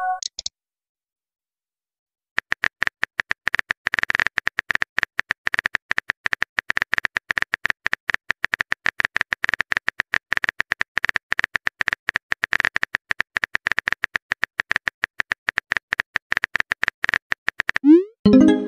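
Rapid, irregular clicking of a smartphone keyboard typing sound effect as a text message is typed out, starting about two seconds in. Near the end comes a short rising pop and chime as the message is sent.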